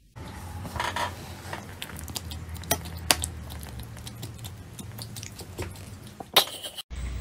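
Black kitten biting and chewing at a dangled string: small scattered clicks and taps at irregular intervals over a low hum, with a brief louder scratchy noise near the end.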